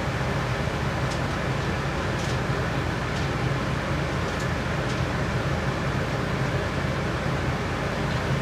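Steady mechanical hum and hiss of running machinery, with a few faint light clicks in the first half.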